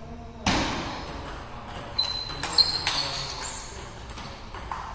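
Table tennis ball being struck by paddles and bouncing on the table in a rally: a string of sharp clicks, with a louder knock about half a second in. Brief high squeaks come between about two and three and a half seconds in.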